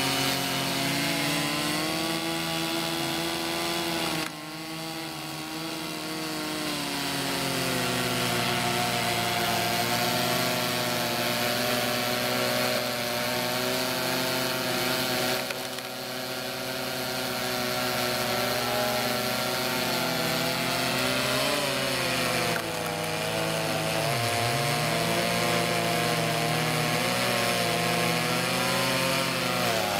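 Chainsaw cutting through firewood logs, its engine note rising and falling as it works, with a steady lower drone underneath and the pitch dipping briefly twice near the end.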